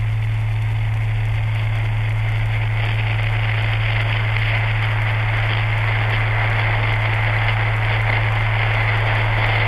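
Beer foam fizzing and crackling as it wells up out of the top of an opened can, getting a little louder after about three seconds, over a steady low hum.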